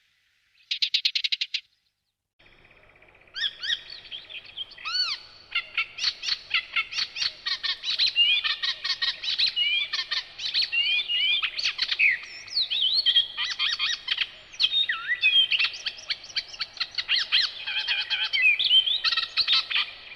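Several songbirds singing together in a May woodland, a dense mix of whistles, pitch glides and quick trills from a few seconds in. It opens with a short, fast ticking trill about a second in, followed by a brief pause.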